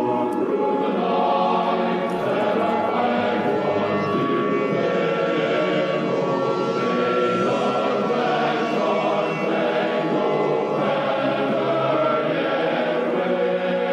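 Choral music: a choir singing slow, held notes that change every second or two.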